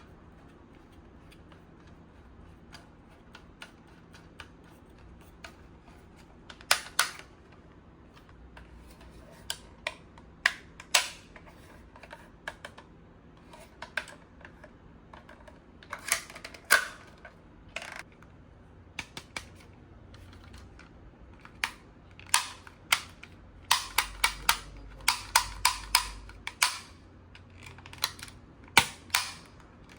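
A toy blaster's plastic mechanism clicking and snapping as it is worked and fired: a string of sharp clicks at uneven intervals, some in quick runs of three or four.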